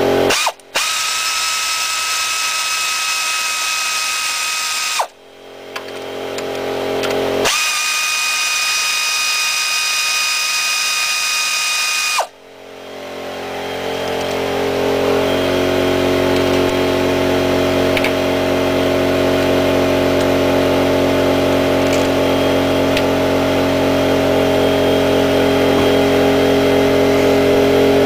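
Power tool spinning out two 13 mm bolts on a car's upper engine mount bracket: two runs of a steady high whine, each about four and a half seconds long, winding down in pitch as it stops. After the second run a lower steady machine hum builds up and carries on.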